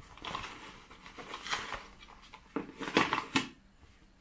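Cloth dust bag rustling as it is handled and turned between the hands: a run of soft fabric rustles, with a few sharper, louder rustles about three seconds in.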